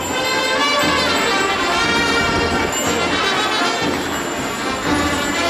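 Loud band music led by wind instruments playing held notes over a low bass.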